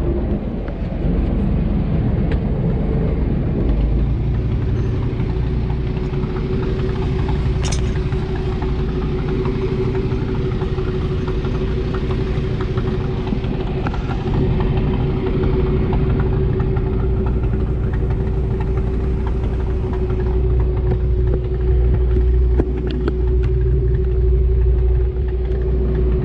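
Small wooden fishing boat's engine running steadily under way: a continuous low rumble, with a steady hum that comes in about four seconds in.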